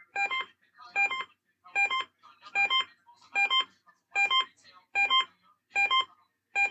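Electronic EAS test alert tone: a two-note beep, a lower note then a higher one, repeating a little faster than once a second.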